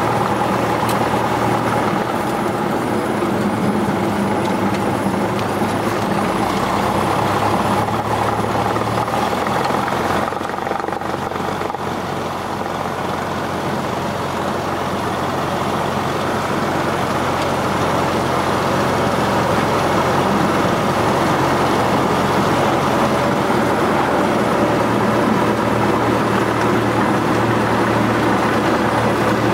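Cessna 172's four-cylinder piston engine and propeller running steadily at taxi power, heard inside the cabin. The engine note drops a little about ten seconds in, then comes up slightly and holds steady as the aircraft lines up on the runway.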